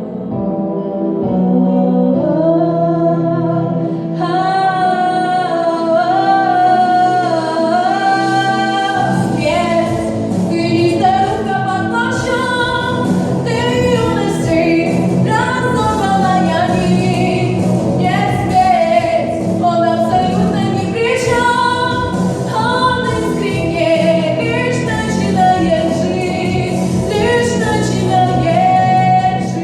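Music: a slow piece with a held, slightly wavering sung melody over sustained chords. A low bass line comes in about nine seconds in.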